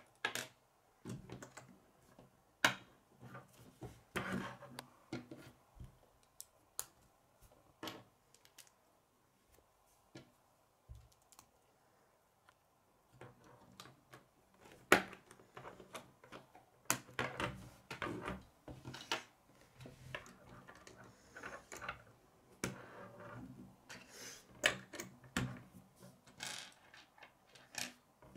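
Plastic K'nex rods and connectors clicking as they are snapped together and set down on a wooden table: irregular sharp clicks and clatter, with a quiet stretch of a few seconds near the middle.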